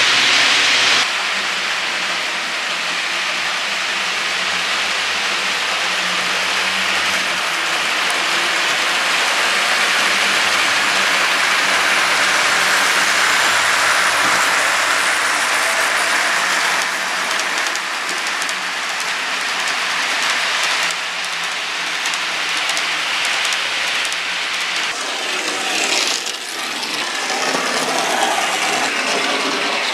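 HO scale model trains running on a layout: a steady rushing noise from the rolling models, which gets less even near the end.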